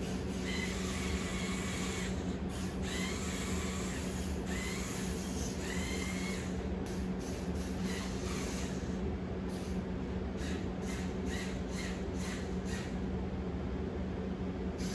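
Small electric motors of a Mould King 13106 brick-built RC forklift whining as it drives and steers, the whine rising and falling in pitch several times in the first half. Short sharp clicks come repeatedly in the second half.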